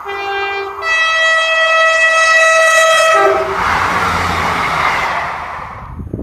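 A diesel locomotive's two-tone horn: a low note, a longer high note, then the low note again briefly. The noise of the train passing follows, dying away near the end.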